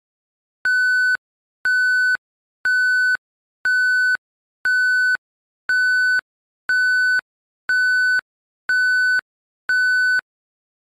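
Electronic countdown-timer beeps: ten identical short, high, steady beeps, one a second, ticking off the time given to answer.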